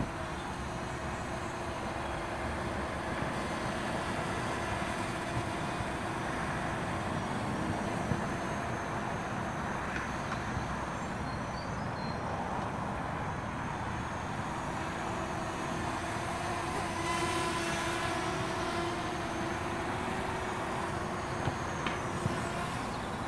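MJX Bugs B7 brushless quadcopter flying low, its propellers giving a steady drone with a few tones that drift slightly in pitch, over a broad hiss.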